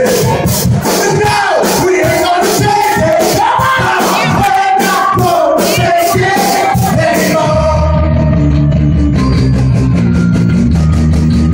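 Live rock band playing loud, a singer's voice over a steady fast cymbal beat. About two-thirds of the way in the singing stops and the band drops into heavy sustained low guitar and bass chords, with the cymbals coming back in near the end.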